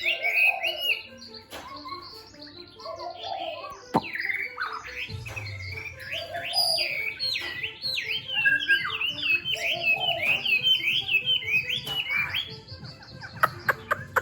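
Caged songbird singing a long run of quick, varied whistled phrases, with a sharp click about four seconds in.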